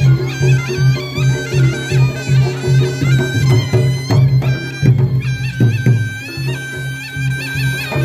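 Reog Ponorogo gamelan music: a shrill, reedy slompret melody wavers and bends over a steady low beat of about two strokes a second, which drops out briefly near the middle.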